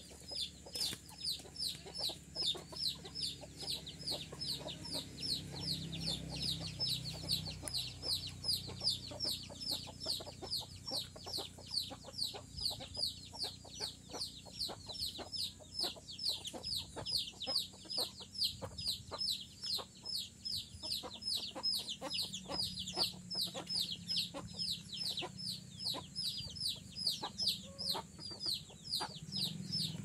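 Young parakeet chick calling over and over: short, high, falling notes at about three a second, in a steady unbroken run.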